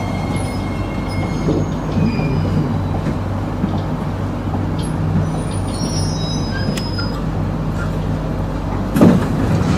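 Metro train heard from inside the carriage as it runs slowly into an underground station: a steady low running hum with a few faint, brief high whines. Near the end there is a short, louder burst of noise.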